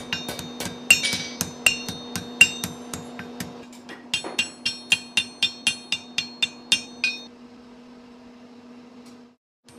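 A smith hammering an iron kettle handle on metal: quick light taps, then regular ringing blows about three a second, which stop about seven seconds in. A steady low hum runs underneath.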